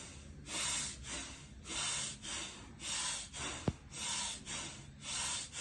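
A man breathing deeply and deliberately as a yogic breathing exercise, a hissing breath about once a second. A single sharp click about two-thirds of the way through.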